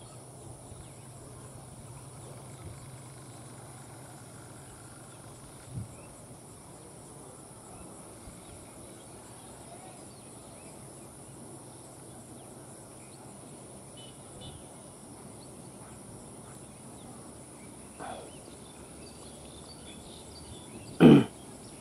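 Steady rural background with a constant high-pitched insect buzz and a few faint distant clicks; about a second before the end, one short loud sound cuts through.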